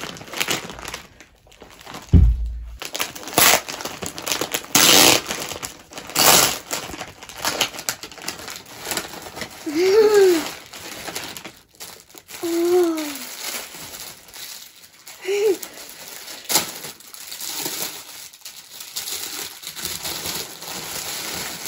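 Foil mailer bag and plastic wrapping crinkling and rustling in irregular bursts as it is torn open and unwrapped by hand. A voice makes a few short wordless sounds midway.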